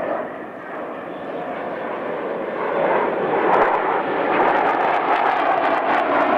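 Jet engine noise from a formation of Sukhoi Su-27 fighters flying past, a steady rushing noise that grows clearly louder about three seconds in as the jets come closer.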